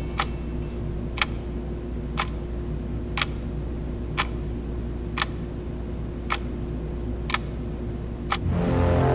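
A clock ticking about once a second over a low steady hum. Music comes in near the end.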